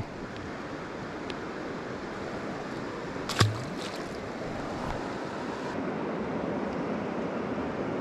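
Steady rushing of a flowing river current, with one brief sharp knock about three and a half seconds in.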